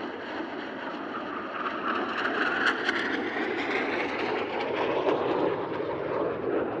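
A pair of Canadair NF-5 fighter jets, each with twin General Electric J85 turbojets, flying a low display pass: a steady jet rush that builds to its loudest in the middle, then drops in pitch as they go by.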